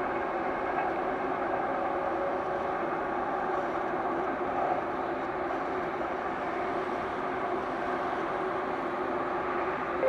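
A train running on the tracks, making a steady rolling noise.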